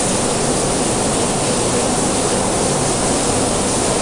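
Heavy rain falling, a steady, even hiss with no breaks.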